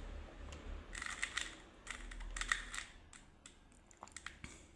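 A Rubik's cube's layers being turned by hand: quick plastic clicks and clacks in short flurries, about one second in, around two to two and a half seconds, and again near the end.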